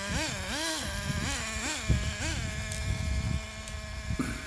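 Small single-cylinder nitro glow engine of an RC truck blipped on the throttle, its pitch swinging up and down several times over the first two and a half seconds, then settling to a steady idle. The engine is out of tune.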